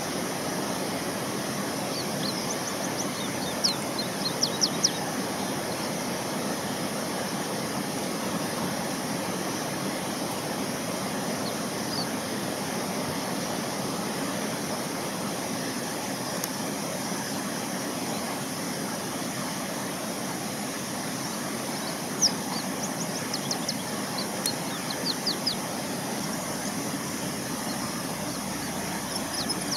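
Steady outdoor background noise with two short runs of quick, high-pitched bird chirps, one about three to five seconds in and another a little past twenty seconds in.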